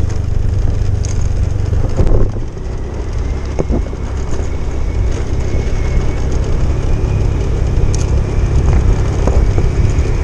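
Motorcycle riding along a road, heard from a camera on the bike: a steady low rumble of engine and wind, with a couple of light knocks about two and four seconds in.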